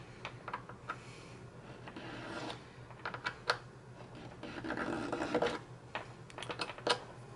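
Triangular diamond needle file rasping in short, irregular strokes across an acrylic pipe stem, deepening a scribed line that will serve as the reference for the stem's button.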